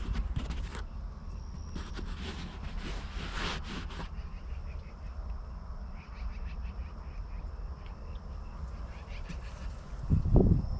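Quiet riverside outdoor ambience: a steady low rumble, a faint steady high-pitched insect-like drone and faint distant calls, with a few rustles early on. A brief louder low rumble comes near the end.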